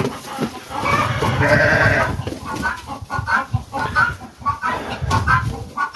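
Farm livestock calling: one wavering bleat about a second and a half in, then a run of short clucking calls.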